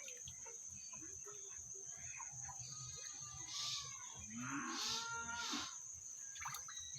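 A cow mooing once, a call of about a second and a half in the second half, over a steady high-pitched whine.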